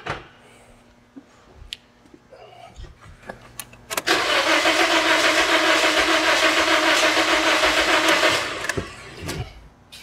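2009 Toyota Corolla 1.8-litre four-cylinder engine cranking on the starter with its fuel injectors unplugged, starting about four seconds in and stopping after about four and a half seconds. The technician calls it the sound of a dead hole: a cylinder with little or no compression.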